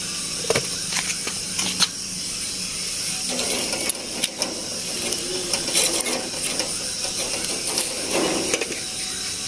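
Chicken grilling on a wire rack over charcoal: a steady sizzling hiss with scattered sharp crackles and clicks.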